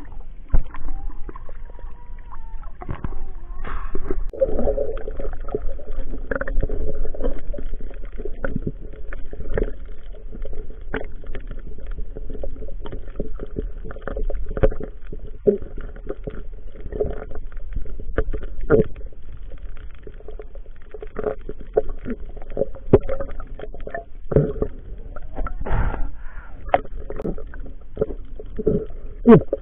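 Muffled underwater sound picked up through a waterproof action-camera housing: water sloshing and gurgling, with frequent sharp clicks and knocks throughout.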